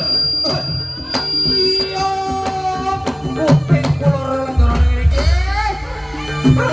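Javanese gamelan accompaniment for a barongan dance: hand-drum strokes under held pitched notes, with a voice-like line sliding in pitch, and a deep low boom coming in about four and a half seconds in.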